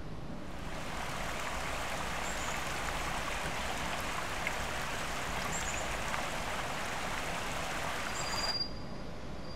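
Shallow rocky mountain stream running between boulders: a steady rush of water with a few faint high chirps over it. Near the end the water sound cuts off suddenly, leaving a quieter hiss and a short high note.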